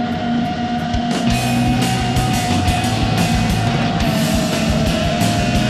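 Heavy rock music with distorted electric guitar and a driving drum beat.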